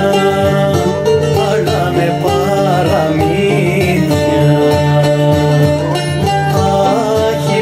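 Live traditional Cretan music from a small folk ensemble: plucked strings (mandolin, laouto, guitar) with a bendir frame drum, playing steadily. A wavering melody line runs over a held low note.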